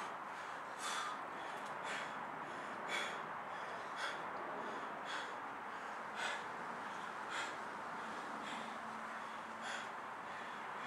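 A man breathing hard, with short sharp breaths about once a second as he recovers from swinging a 34 kg sledgehammer.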